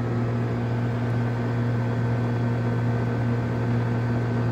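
Outdoor air-conditioner condensing unit running: a steady low electrical hum with a noisy whoosh over it.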